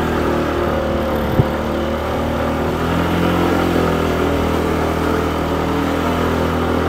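Motorbike engine running steadily on the move, getting a little louder from about three seconds in, with a single click about a second and a half in.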